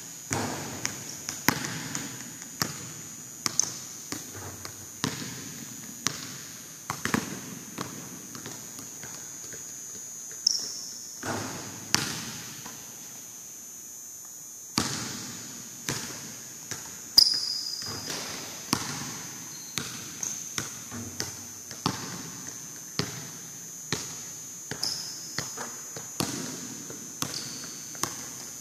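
Basketballs bouncing repeatedly on a gym floor, each thud echoing around the large hall, with a brief lull about halfway through.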